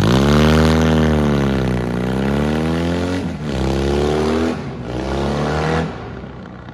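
Motorcycle engine revving: the revs rise sharply, fall away and climb again, cut briefly about three seconds in, climb once more, then settle to a quieter idle near the end.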